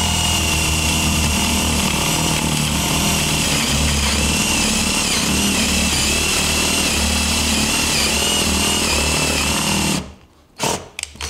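KIMO 20V cordless drill driver in drill mode boring a 40 mm hole in wood with a Forstner bit: a steady motor whine that wavers as the drill is deliberately wobbled so the bit cuts at points. It stops suddenly about ten seconds in. The speaker describes the boring as quiet.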